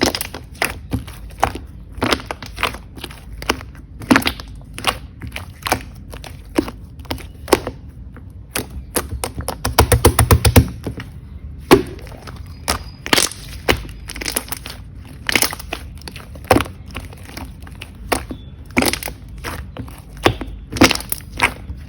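Green avocado slime being squished and poked, making sharp, irregular clicks and pops, with a quick run of crackling about ten seconds in.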